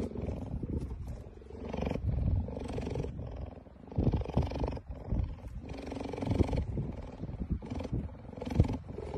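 Cheetah purring close to the microphone, a low rough rumble that swells and fades every second or so with its breaths.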